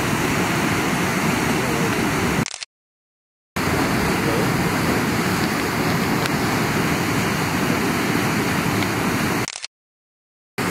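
Steady rush of flowing water, broken twice by short, dead-silent gaps: one a few seconds in and one near the end.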